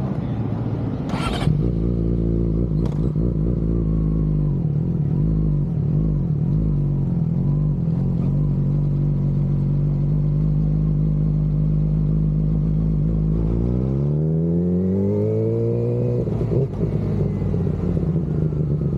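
Yamaha R6's inline-four engine running at low revs as the motorcycle rolls slowly, with a sharp clack about a second in. Near the end the revs rise smoothly for a couple of seconds, then drop back.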